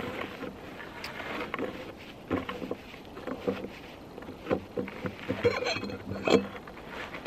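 Fuel pump being unscrewed by gloved hands from a liquid-fuel stove bottle whose pressure has just been bled off: scattered clicks and knocks of plastic and metal with glove rubbing, the sharpest click about six seconds in.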